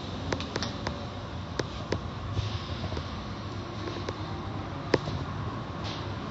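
Automatic car wash heard from inside the car: a steady low rumble and hiss of the wash equipment and water spray against the car, with scattered sharp taps and clicks, the loudest about five seconds in.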